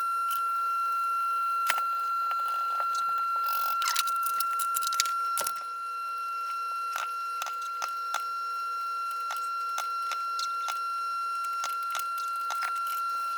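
Small sharp clicks and metallic clinks of tools and parts being handled on an electronics workbench, thicker a few seconds in, over a steady high-pitched electronic whine.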